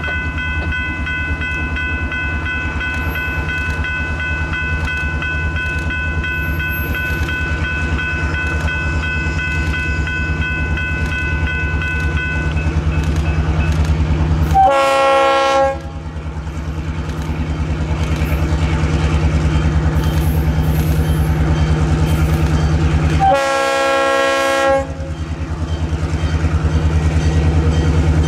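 Diesel freight locomotive approaching, its engine rumble growing steadily louder as it nears. It sounds its horn twice, a short blast about halfway through and a longer one about nine seconds later. A fainter steady high tone fades out before the first blast.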